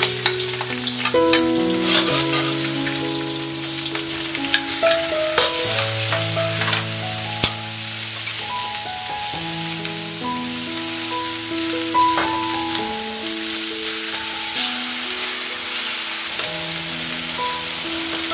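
Pig intestines sizzling as they are stir-fried in hot oil in a wok with dried chillies, with a metal ladle stirring and clicking against the pan. Soft background music with long held notes plays underneath.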